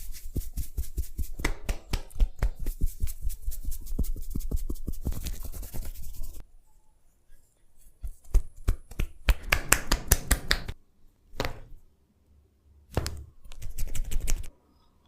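Head massage close to the microphone: quick scratching and tapping on hair and scalp. It runs dense for about six seconds, then comes in separate bursts with short gaps.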